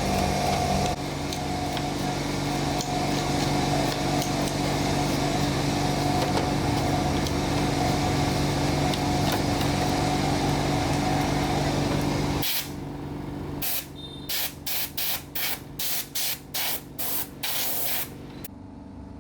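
A motor runs steadily with a hiss and a hum, then stops about twelve seconds in. Near the end come a series of short hissing sprays, about two a second.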